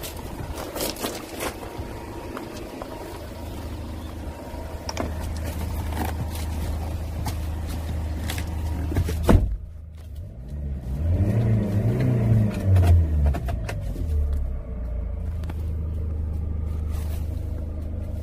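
Hyundai Grand Starex van's engine heard from inside the cabin, with a sharp click about halfway through and a brief drop in sound, then the engine note rising and falling for a few seconds before settling back into a steady idle hum.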